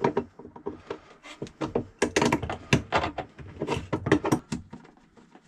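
Hands working at a power inverter's battery-cable terminals: a run of small clicks, knocks and rattles from the cable lugs and connectors, busiest in the middle and dying away near the end.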